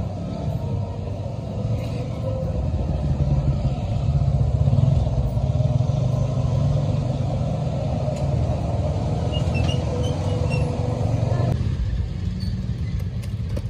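Busy street noise: a steady low rumble of motor traffic, with motorcycles among it. Part of the noise drops away about twelve seconds in.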